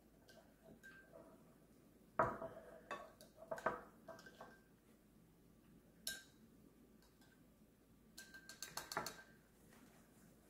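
A plastic spoon tapping and scraping against a ceramic bowl while stirring melted butter and herbs: a cluster of clinks, a single tap, then a quick run of taps near the end.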